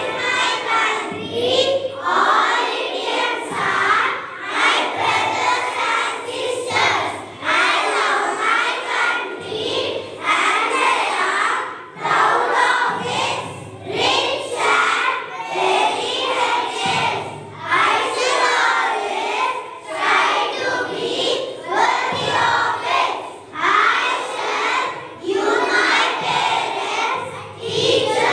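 A group of children reciting a school pledge together, chanting in unison phrase after phrase with short breaks between lines.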